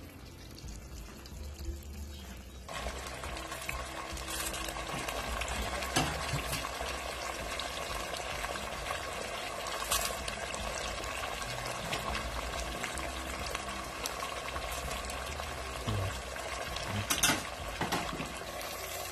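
Pot of chicken tikka sizzling in oil. A steady sizzle comes in suddenly about three seconds in, with a few sharp clicks.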